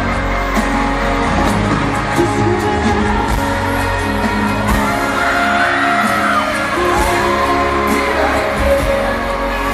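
Live pop ballad played loud over a stadium sound system: a band with a singer, recorded from among the audience.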